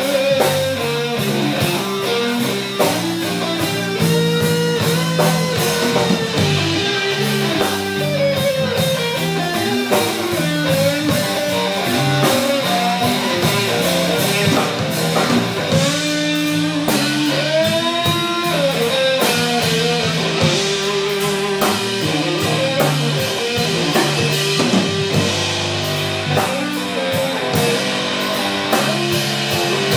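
Live blues-rock band playing: an electric guitar leads with bent and wavering notes over steady low notes and a drum kit.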